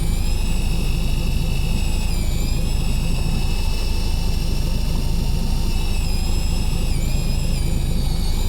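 Daiwa Seaborg 200 electric fishing reel whining as its motor winds in line, the pitch dipping briefly a few times as the load on the line pulls against it, over a steady low rumble.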